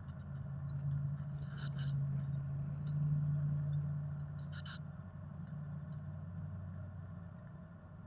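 A low steady drone that swells over the first few seconds and then fades, with short high peeps from chickadee nestlings twice, about two seconds in and again near five seconds.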